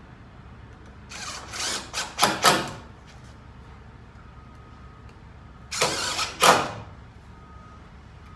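A cordless power tool run in two short bursts, about a second and three seconds apart, its motor spinning up and winding down each time.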